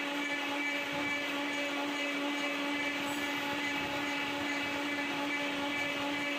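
Vertical milling machine running, its helical end mill cutting along a welded metal edge under coolant: a steady mechanical hum with a constant tone over an even cutting noise.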